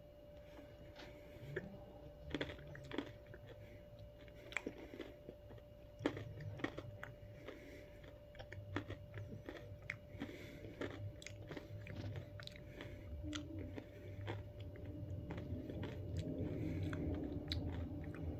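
Chewing a bite of a Reese's peanut butter cup with pretzel pieces inside, with irregular sharp crunches as the pretzel bits break between the teeth. A faint steady hum runs underneath.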